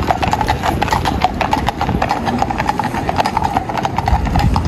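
Horses' hooves clip-clopping, many hoofbeats overlapping in a steady stream as a group of mounted riders passes.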